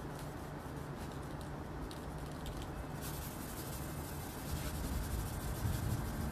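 Sandpaper on a hand sanding block rubbing back and forth over body filler (Bondo) on a car tailgate, a dry rasping scrape.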